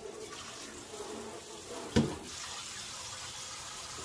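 Kitchen sink pull-down sprayer spraying water into a plastic dishpan to rinse the sand out of it, a steady rush of water with a single knock about two seconds in. The spray cuts off suddenly at the end.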